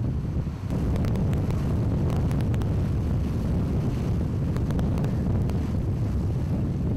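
Wind buffeting the microphone aboard a sailing ship at sea: a steady low rumble, with a few faint ticks scattered through it.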